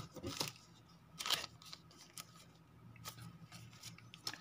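Scattered light clicks and rustles of hands handling a phone box's paper leaflets and accessories, the loudest about a second in.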